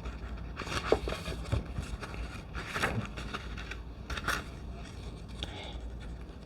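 Glossy tarot cards being slid and leafed through by hand, a few short scraping swishes as cards rub across one another while searching the deck.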